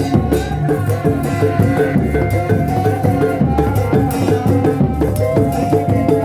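Sundanese reak music: drums beat a steady, busy rhythm under a held melody line that bends in pitch about five seconds in.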